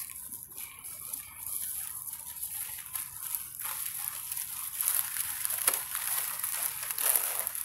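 Dry leaf litter crunching and rustling under footsteps, in short irregular crackles that grow denser and louder in the second half, over a steady high-pitched hiss.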